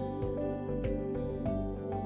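Background music: sustained pitched notes over a steady beat, with a light plucked-guitar colour.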